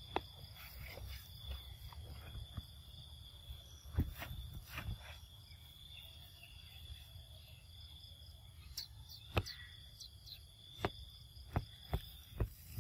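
Insects droning steadily at one high pitch, with scattered short clicks and taps that come more often near the end.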